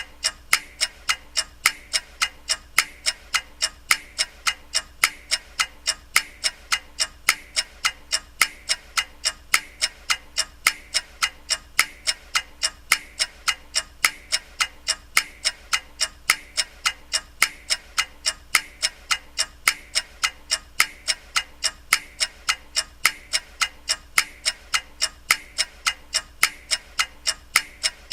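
Ticking clock: a steady, evenly spaced run of sharp ticks.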